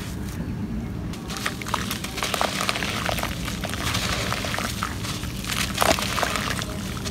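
Dry red soil and clay clumps crumbled by hand: a gritty, crackling trickle of falling crumbs, with a sharper crack near the end as a clod breaks. Small bits drop into shallow water in a clay pot.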